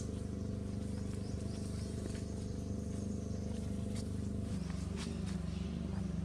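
A motor engine running steadily at idle, its note shifting slightly about four and a half seconds in, with a few faint sharp clicks.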